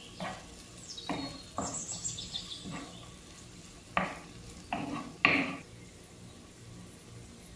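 Wooden spatula stirring and scraping diced onion, garlic and bell pepper frying in a stone-coated nonstick pan, with a light sizzle. Several quick scrapes come in the first half, then the stirring stops and only the sizzle goes on.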